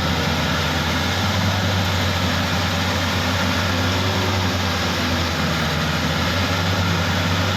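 Rice combine harvester running steadily: a constant low engine drone under an even wash of machine noise.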